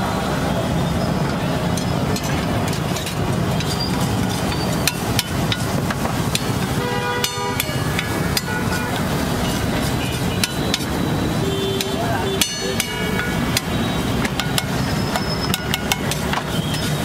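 Flat metal spatula repeatedly tapping and scraping against a flat steel griddle while spiced vegetables are chopped and mixed on it, giving many sharp irregular clinks over a steady background din.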